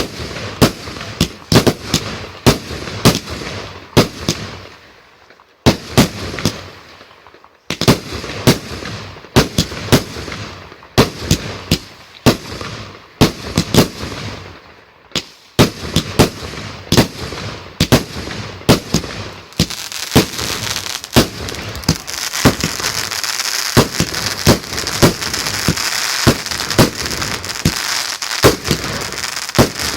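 Fireworks going off in rapid succession, loud sharp bangs several a second, each trailing off. From about twenty seconds in, a dense continuous crackle fills in beneath the bangs.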